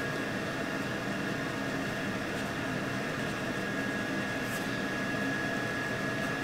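Steady whirring hum of a running kitchen appliance's fan, with a thin high whine held steady over it.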